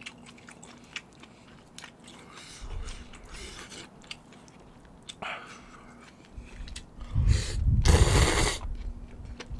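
Close-miked eating of spicy seafood noodles: small mouth clicks and chewing, then noisy sucking bursts, the loudest about a second and a half long near the end, as noodles are slurped in.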